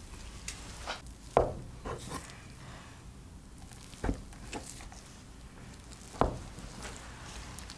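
Gloved hands working soft dough on a floured wooden table: scattered soft taps and rubbing, with three louder knocks a couple of seconds apart.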